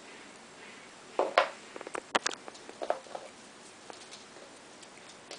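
Shetland sheepdog puppy scrambling about on a hardwood floor: a cluster of scuffles and a few sharp knocks, the loudest between one and two seconds in.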